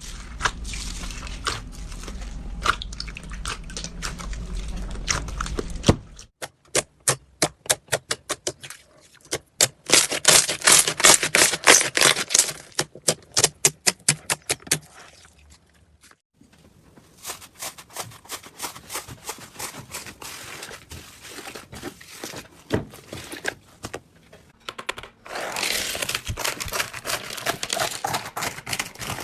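Slime being worked by hand: squeezed, stretched and pressed, giving sharp clicking, crackling pops. The pops come in fast runs in the middle and sparser and softer elsewhere, in several separate clips.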